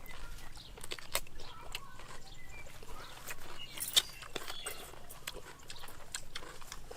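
Eating sounds: scattered sharp clicks and smacks of chewing and handling food, the loudest about four seconds in, with faint animal calls in the background.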